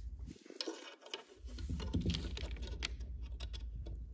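Quick, irregular light metal clicks and taps as a steel AK mag catch and its cross pin are handled and test-fitted into the receiver at the trigger guard, over a low hum that drops out for about a second near the start.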